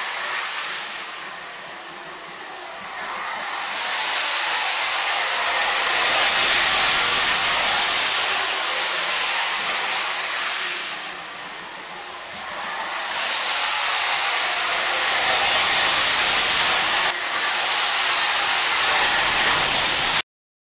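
Jet-engine sound effect of a Lionel O-gauge M-497 jet-powered Budd RDC model: a steady whooshing roar that fades and swells back twice, then cuts off suddenly near the end.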